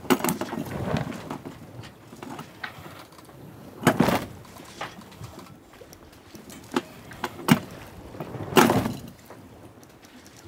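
Water splashing alongside a sailing yacht's hull in three short bursts, about a second in, around four seconds and near nine seconds, with a few sharp knocks between them.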